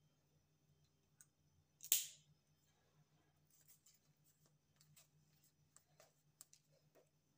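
A sharp click about two seconds in that fades out quickly, then scattered faint clicks and light taps over a very quiet background.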